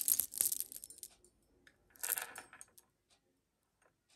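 Jewelry and its plastic packaging being handled: crinkly rustling with small hard clicks and clinks. It comes in two short bursts, the first about a second long and the second about two seconds in.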